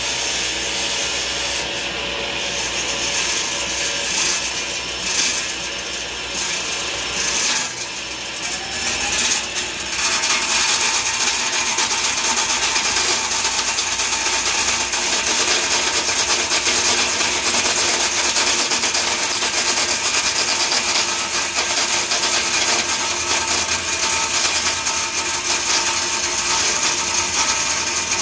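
Table saw blade cutting into a spinning teak post, turned by a cordless drill on a table-saw lathe jig. The cut is uneven for about the first ten seconds, then becomes continuous and a little louder.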